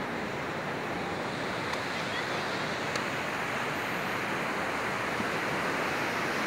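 Surf from strong, high waves breaking on an open-ocean beach: a steady, continuous rushing noise.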